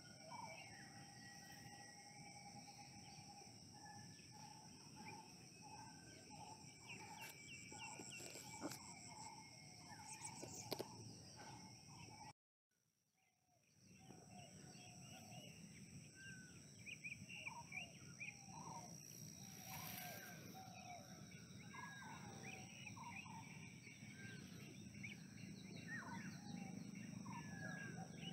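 Faint chorus of wild birds chirping and calling in many short, varied notes over a steady high-pitched drone. The sound drops out completely for about a second twelve seconds in, then the birdsong resumes.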